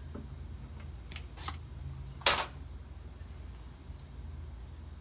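Handling noise from gluing a wooden rocking chair joint: two light clicks, then one sharp knock a little over two seconds in, over a steady low hum.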